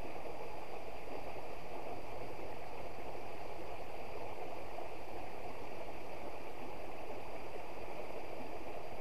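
Shallow rocky stream running over stones in riffles: a steady, even rush of water.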